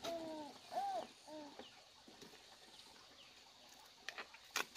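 Small animals calling: four short arched calls in the first second and a half, then faint high chirps. A few sharp knocks come near the end.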